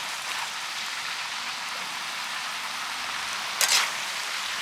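Snails and lá cách leaves stir-frying in a hot pan, giving a steady sizzling hiss. A brief clatter comes about three and a half seconds in.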